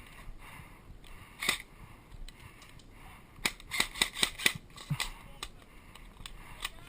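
Airsoft guns firing: sharp snapping shots, a single one, then a quick irregular string of about seven, and one more near the end.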